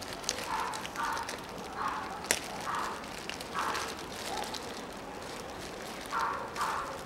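A small plastic sachet of silicone grease being handled and worked open with a thin screwdriver, with light crackling and one sharp click about two seconds in. A series of short hoarse bursts, often in pairs, repeats in the background.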